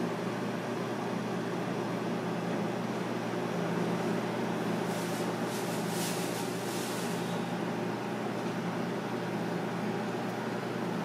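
Steady low hum and hiss of room ambience, like a fan or air conditioning running, with a few soft brief hisses about five to seven seconds in.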